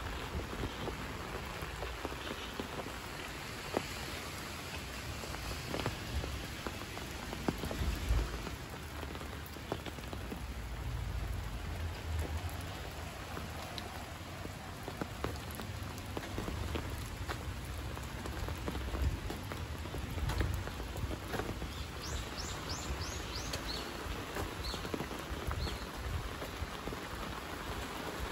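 Steady light rain falling, with scattered drops ticking on nearby surfaces over a low rumble. Near the end a bird gives a few short, high, falling calls.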